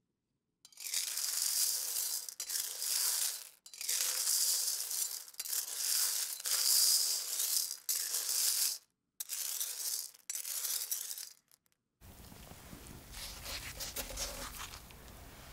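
Small smooth stones stirred with a metal spoon in a hot wok, a dense rattling of pebbles against each other and the pan. It comes in several stretches with brief silences between them.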